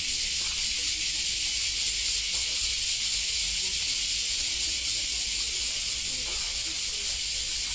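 A steady, high-pitched hiss that does not change at all, with faint voices of passers-by underneath.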